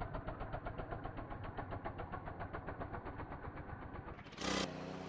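Small engine of a motorcycle-style power weeder running with a fast, even chugging while its rear rotavator tills the soil. Near the end there is a short louder burst, followed by a steadier engine note.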